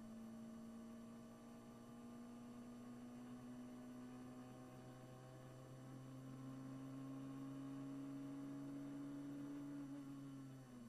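Brabham BT21 one-litre Formula 3 car's engine at full throttle, heard onboard: a steady note that climbs slowly in pitch as the car gathers speed, then dips briefly near the end as the driver lifts off for the corner.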